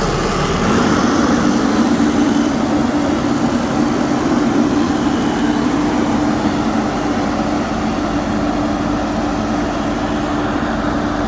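Diesel engine of a Case 590 Super N loader backhoe running, settling about a second in into a steady drone that holds.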